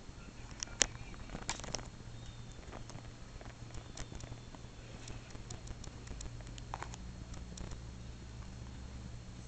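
Faint handling noise: scattered soft clicks and rustles of a hand and the camera moving against fur and blanket, with one sharper click about a second in, over a low steady hum.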